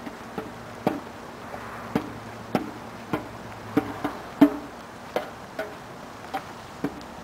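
Footsteps on snow-covered ground at a steady walking pace, about one and a half steps a second, each step a short crunch.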